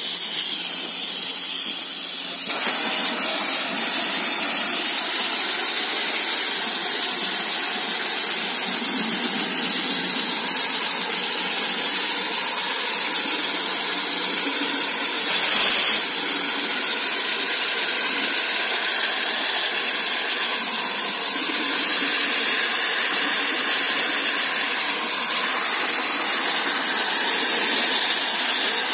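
Sandblasting gun fed by a 50-litre air compressor, blasting abrasive in a steady hiss that gets louder and brighter about two and a half seconds in.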